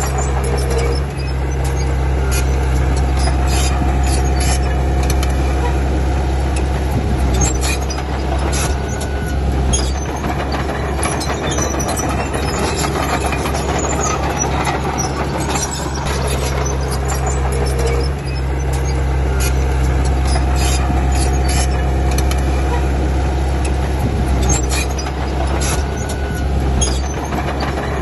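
Komatsu D31P crawler bulldozer's diesel engine running steadily, with the steel tracks clanking and squealing as it works.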